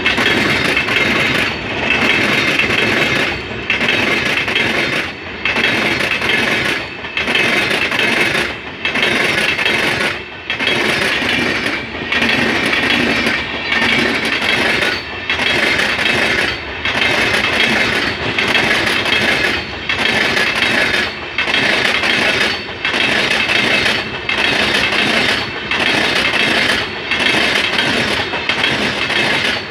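Passenger coaches of an LHB rake rolling past, their wheels running loudly and steadily on the rails. The sound dips briefly in a regular beat, about every one and a half seconds.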